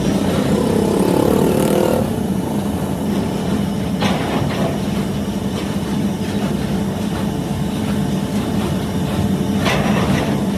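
A motor running steadily with a low hum, its pitch rising over the first two seconds, with short rushes of noise about four seconds in and again near the end.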